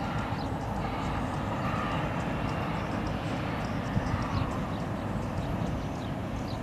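Steady low rumble of the tugboats' and container ship's engines working across the harbour, with a single dull thump about four seconds in.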